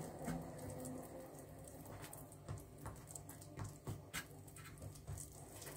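Faint soft taps and rustles of hands rolling and twisting a strip of poppy-seed dough on a greased work surface, over a low steady hum.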